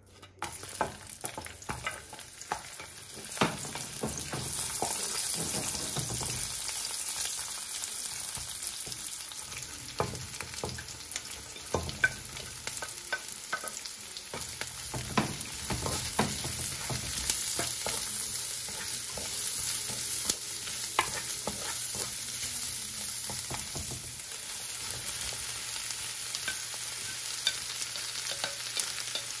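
Vegetables sizzling in hot oil in a stone-coated nonstick wok as sliced carrots are stir-fried, with a wooden spatula clicking and scraping against the pan. The sizzle builds over the first few seconds and then holds steady.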